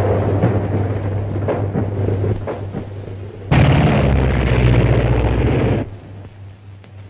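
Old film sound effects: a low steady hum with scattered crackles, then about three and a half seconds in a sudden loud explosion-like blast that lasts about two seconds and cuts off sharply. The blast fits the aerial torpedo just ordered against the attacking airship.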